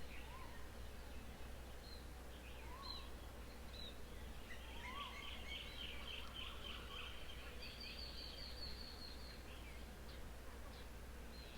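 Several birds calling: scattered short chirps and a few rising whistled notes, a chattering run of notes about halfway through, and a rapid high trill a little later, over a steady low background hum.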